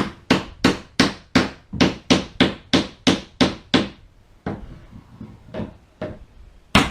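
Brads being driven into wood: a quick run of about a dozen sharp, evenly spaced strikes, about three a second, then a pause, with the strikes starting again near the end.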